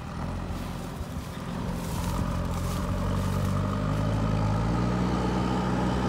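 JCB 3DX backhoe loader's diesel engine running, revving up about a second and a half in and staying at higher revs.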